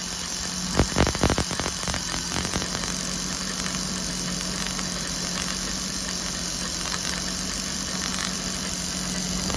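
MerCruiser 4.3 L V6 running with an adjustable spark tester sparking across its wide gap on the new Delco EST ignition, a steady high-pitched electrical hiss and buzz, the "electromagnetic noise" of the arc, over a steady engine hum. A few sharp snaps come in the first two seconds or so.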